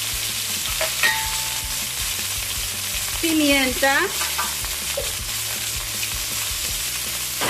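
Strips of beef sizzling steadily in hot oil in a wok, left unstirred to sear and brown.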